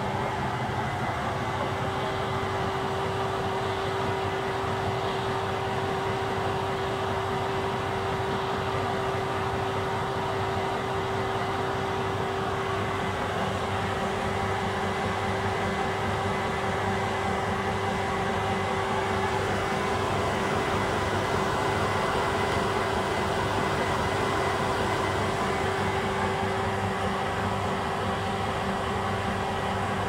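1978 Indesit L8 front-loading washing machine on its final spin, its top speed of 380 rpm: the motor and drum run with a steady hum and rumble.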